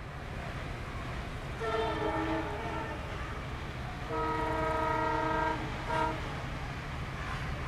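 Diesel locomotive horn sounding three times over the low rumble of the engine as the train approaches: a blast of about a second, a longer one of about a second and a half, then a short toot. It warns people walking on the track ahead.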